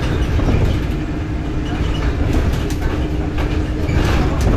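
Scania bus running: a steady low engine and road rumble under a constant hum, with light rattles now and then.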